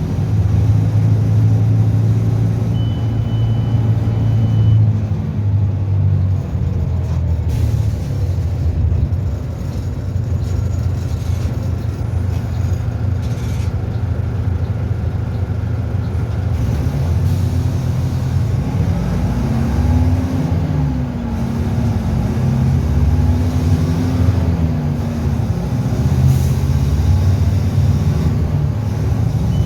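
Diesel engine of a Mercedes-Benz OF-1722M Euro III bus running at high revs, steady at first, then rising and falling in speed several times in the second half.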